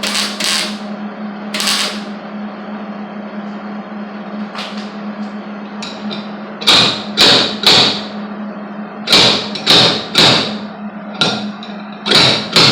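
Slide hammer welded into a dent in a VW's steel cowl, its sliding weight slamming against the stop to pull the dent out. The sharp metallic blows come a few at a time at first, then in quick runs of three or four, about two a second, in the second half, over a steady low hum.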